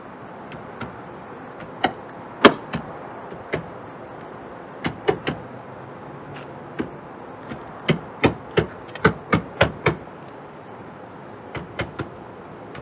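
Hands knocking and pressing the plastic tail light housing of a 2014–2017 Infiniti Q50 to seat it in its mounting: a string of sharp knocks. There is a quick run of about six of them around eight to ten seconds in, and three more near the end.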